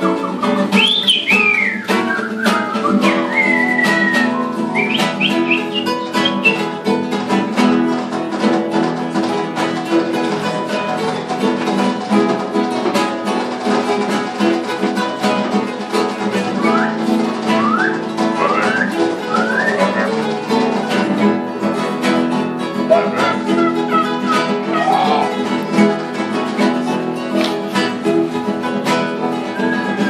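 Several acoustic guitars playing together, with short whistled bird-like calls gliding up and down over them a few times, near the start, in the middle and near the end.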